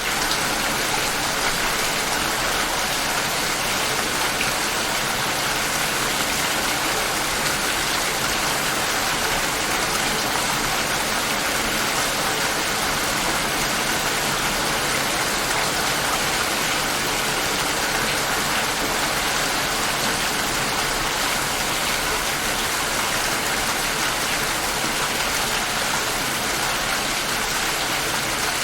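Steady rain falling, an even, unbroken hiss that holds the same level throughout.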